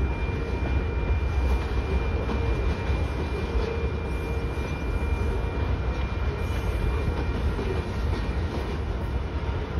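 Covered hopper cars of a grain freight train rolling past over a road grade crossing: a steady low rumble of steel wheels on rail.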